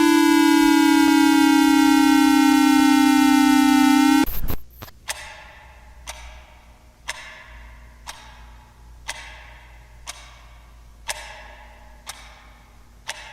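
A loud siren tone, sliding slowly down in pitch, cuts off abruptly about four seconds in. A clock then ticks once a second.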